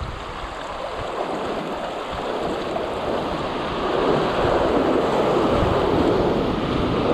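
Sea surf washing and breaking over shoreline rocks, growing louder about four seconds in, with wind rumbling on the microphone.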